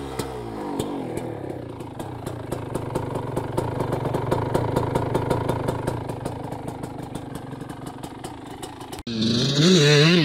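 1996 Yamaha YZ125 two-stroke engine with a DLR silencer, running cold after a cold start: the revs fall back from a blip to a steady idle with an even ticking. About nine seconds in it cuts off sharply and music starts.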